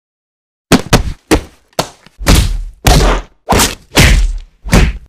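After nearly a second of silence, a run of loud thumps, about two a second, each dying away quickly.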